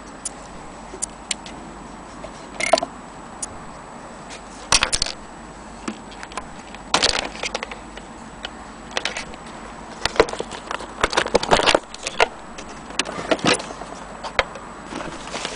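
Handling noise from a Singer Tempo 20 sewing machine and its power cord: irregular clicks, taps and rattles of plastic parts and cable being moved about, most frequent in the last third.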